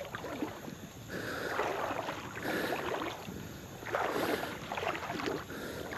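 Water sloshing and swishing around a person's legs as they wade through a shallow river, in two swells.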